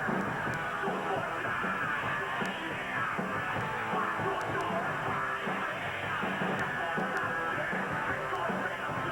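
Loud heavy rock music: a band with electric guitars and drums playing steadily.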